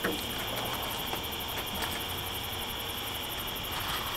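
Steady night-time insect chorus, crickets chirping in a fast, even pulse over a low background hum.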